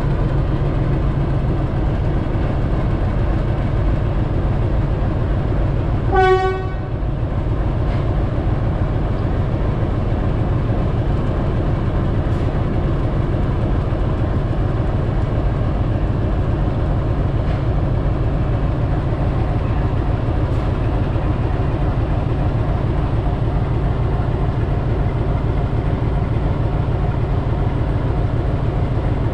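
Diesel locomotive engine running steadily at a standstill, with one short horn toot about six seconds in.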